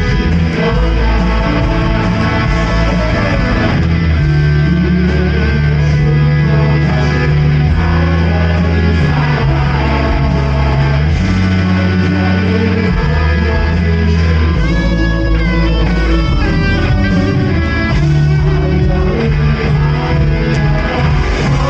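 A live worship praise band playing a passage in which guitar leads over a steady, changing bass line, with little or no singing. A quick, high lead line comes in about two-thirds of the way through.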